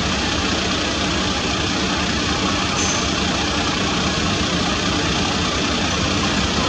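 Engine of a heavy overhead-line repair truck with an aerial work platform, idling steadily.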